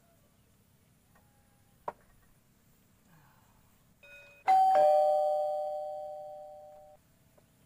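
A two-note ding-dong chime, a higher note then a lower one, rings out about halfway through and fades for two seconds before cutting off abruptly. A faint click comes a couple of seconds before it.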